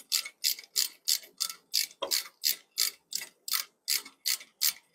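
Hand socket ratchet worked in quick, even back-and-forth strokes, its pawl clicking about three times a second as it runs a crash-bar mounting bolt into the engine's aluminium casing. The bolt is being drawn in gradually and is not yet tight.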